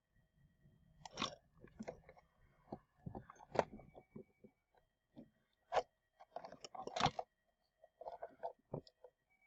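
Irregular clicks, taps and short scrapes of hands working on the plastic gear-and-rubber-band head mechanism of an animatronic singing toy dog.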